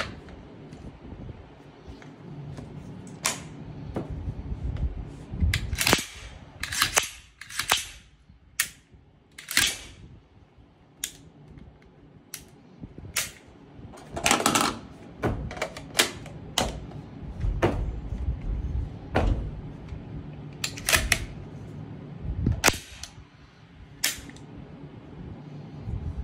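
CZ Bren 2 Ms rifle being handled and worked: about twenty sharp metallic clicks and clacks of its parts at uneven intervals, bunched together about a quarter of the way in and again just past halfway.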